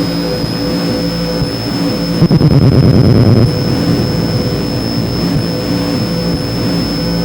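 Soma Laboratories Lyra-8 analog drone synthesizer playing a dark ambient drone: a steady high whistling tone over a middle tone and a pulsing low rumble. About two seconds in it swells into a louder burst of gritty noise that falls back about a second later.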